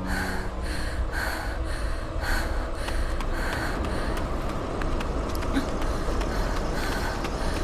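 A woman panting hard as she runs, quick rhythmic breaths about once or twice a second over a steady low rumble.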